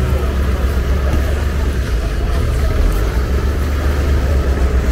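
Small motorcycle engine idling close by with a steady low rumble, over the general noise of a busy street market.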